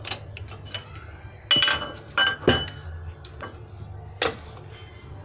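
Metal tools clinking and striking against the Corsa's steel front control arm while its worn bushing is being taken out: sharp metallic hits with a short ringing note, a cluster of loud ones about a second and a half in and one more near the end, with lighter taps between.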